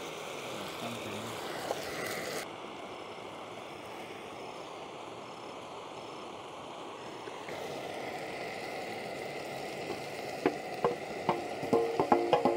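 Beef fajita strips sizzling steadily in a frying pan on a small propane camp stove. Near the end a metal plate and a wooden spoon knock against the pan in a run of ringing clatters as sliced peppers and onions are tipped in.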